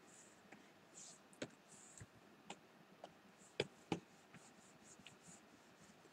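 Near silence: quiet room tone with a few faint, short clicks, the clearest a pair close together near the four-second mark.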